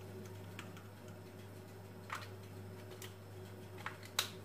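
A few faint, sharp clicks as a small plastic spice jar is handled while cumin is sprinkled into a bowl, the sharpest near the end, over a steady low hum.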